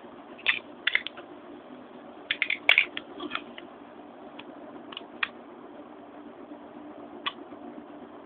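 Small clicks and taps of Beyblade parts, a metal fusion wheel and clear plastic pieces, being handled and fitted together: a quick cluster in the first few seconds, then a few single clicks, over a steady low hum.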